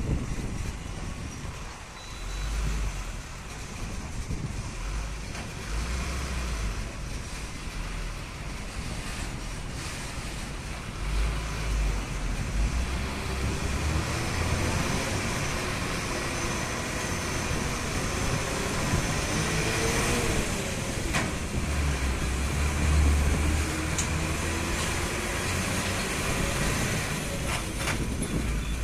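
Old Ashok Leyland tractor-trailer truck on the move, heard from its trailer: a steady diesel engine rumble mixed with road noise, the engine note rising and falling in the middle, with a few sharp knocks in the second half.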